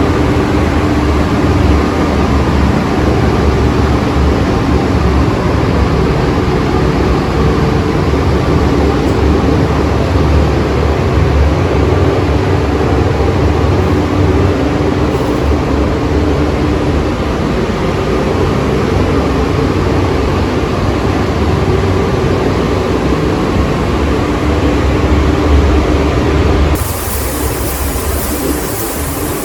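Steady, loud low mechanical rumble with a faint hum, changing abruptly near the end.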